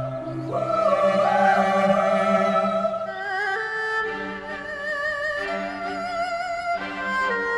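Background music: a slow melody of long held notes with vibrato, stepping from pitch to pitch over a lower sustained tone.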